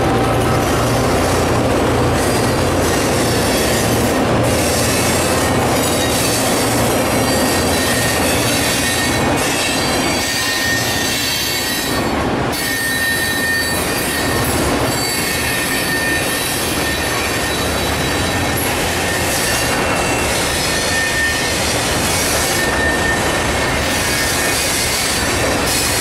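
Freight train of covered hopper cars rolling past close by: a loud, steady rumble and rattle of steel wheels on rail, with a faint high squeal of the wheels coming and going.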